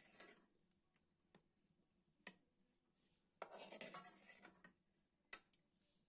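Metal spoon stirring diced sausage in an aluminium saucepan: faint scrapes and single taps of the spoon against the pan, with a longer run of scraping about three and a half seconds in.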